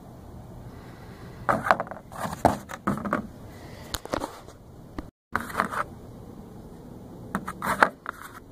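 Hard small parts being handled, in several short runs of scraping and clicking, with the sound cutting out for a moment about five seconds in.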